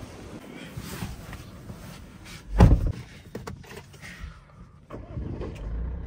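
A car door shuts with a heavy thump about two and a half seconds in, followed by a few light clicks. About five seconds in the Tata Harrier's 2.0-litre diesel engine starts and settles into a steady low idle.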